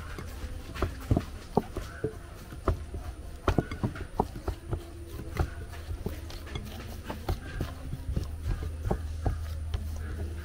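Hands kneading a flour dough in a glass bowl: irregular soft thumps and knocks as the dough is pressed and slapped and the bowl shifts on a wooden board, over a steady low hum.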